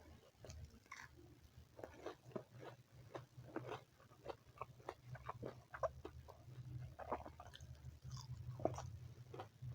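Close-miked eating sounds: chewing and biting, a steady string of short wet mouth clicks and smacks, over a steady low hum.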